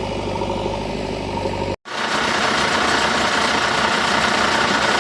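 A motor vehicle engine running steadily, cut off abruptly about two seconds in. It is followed straight away by a different, hissier steady engine-like running sound.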